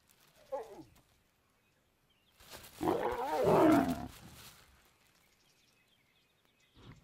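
A lion gives a short falling growl, then about two seconds later a loud, harsh snarling growl lasting nearly two seconds.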